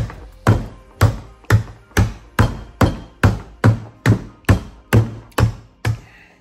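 Rubber mallet striking a QS138 90H electric motor about fourteen times, a steady two blows a second, to knock the rotor out of the stator. The blows stop just before the end.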